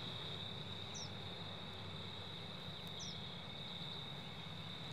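Crickets trilling in a steady, unbroken high chorus, with two brief high falling chirps about one and three seconds in.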